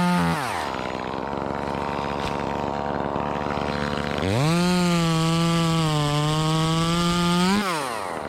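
Chainsaw engine at full throttle drops to idle just under a second in and idles for about three and a half seconds. It then revs up again and runs at high revs for about three seconds, its pitch sagging slightly in the middle, before dropping back to idle near the end.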